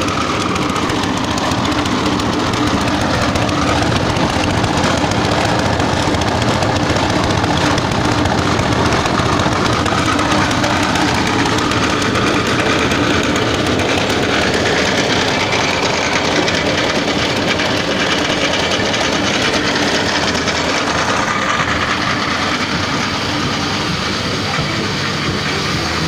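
Small single-cylinder petrol engine running steadily, driving a belt-driven forage chopper for grass.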